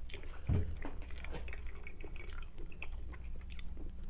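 Close-miked mouth sounds of a person chewing and sipping a drink from a glass: small wet clicks, with a soft low thump about half a second in.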